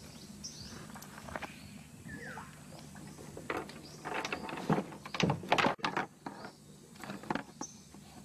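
Scattered knocks and rustling as a fishing net is handled and loaded into a small boat, busiest and loudest about halfway through, with a few short bird chirps.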